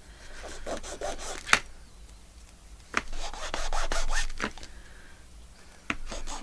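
Paper being rubbed and scraped by hand, in two short scraping stretches with a few sharp clicks in between.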